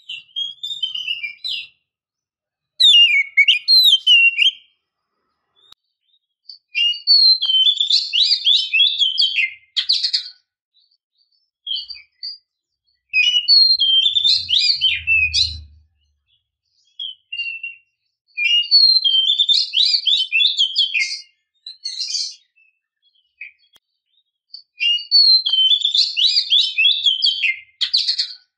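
Oriental magpie-robin (kacer) singing in repeated bursts of rapid, varied whistled phrases, with short pauses between them.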